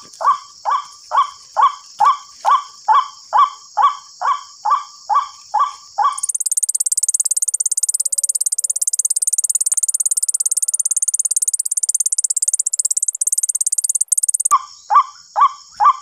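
White-breasted waterhen calls played back through a small horn loudspeaker as a trapping lure: a rapid, even string of croaking notes, about two and a half a second. About six seconds in the calls stop abruptly and a fast, high-pitched pulsing buzz takes over; the croaking resumes near the end.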